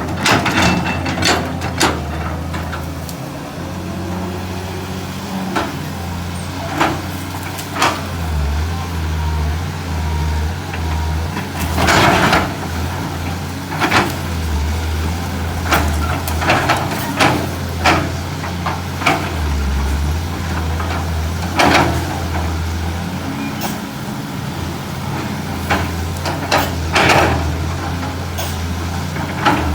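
Excavator diesel engine running steadily under load while the machine prys out eucalyptus stumps, with sharp cracks and knocks every second or two.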